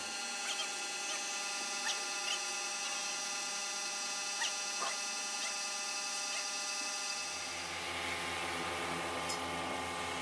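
Electric pressure washer running steadily: a motor-and-pump hum with water spray hissing against a radiator core, and a few light clicks.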